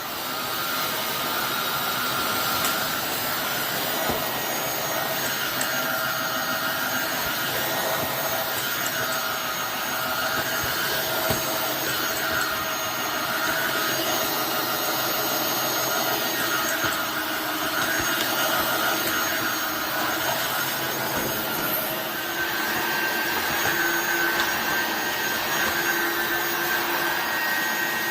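Tineco iFloor 5 Steam wet-dry floor washer running, its suction motor and brush roller giving a steady whir. The pitch of its tones shifts slightly about two-thirds of the way through.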